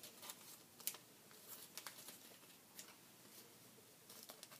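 Faint, scattered snips and light clicks of scissors cutting a thin plastic soda-bottle label.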